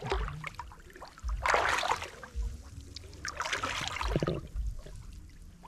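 Water splashing and sloshing in two bursts about two seconds apart.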